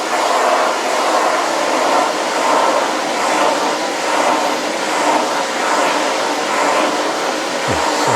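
Household vacuum cleaner running steadily while its nozzle is run over a cat's fur. The even whooshing swells and dips slightly.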